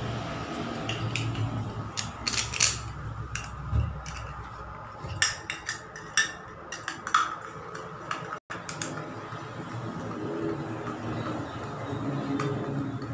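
Screwdriver turning screws into a chrome shower-head wall holder: a series of sharp metallic clicks and scrapes of the tool against the screw heads and bracket, busiest in the first two-thirds, then softer.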